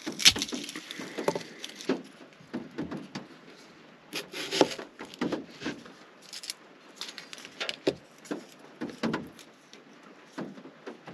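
Irregular knocks and taps of kitchen prep: a knife working through a sweet yellow onion on a cutting board, with a sharp knock right at the start.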